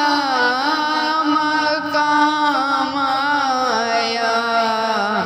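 A voice singing an Urdu naat, holding long, wavering drawn-out notes on the last words of the line. The pitch steps down near the end.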